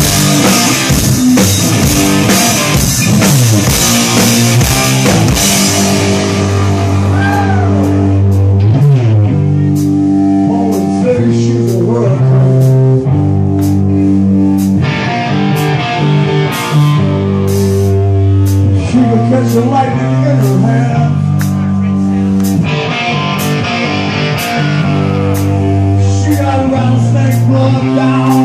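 Rock band playing live: loud electric guitar chords over a drum kit. Cymbals crash heavily for the first six seconds or so, then steady drum hits run under held, changing chords.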